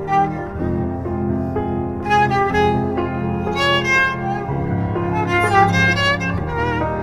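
Instrumental music: a violin playing a melody of held notes over low sustained strings.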